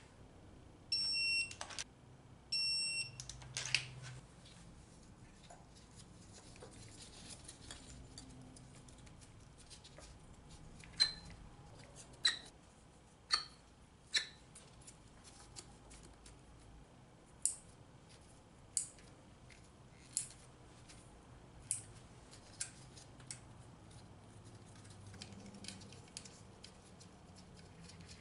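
Two short electronic beeps in the first few seconds, then a series of sharp plastic clicks as the ignition coils are pressed into the Honda Civic's four-cylinder valve cover and their wiring connectors snapped on.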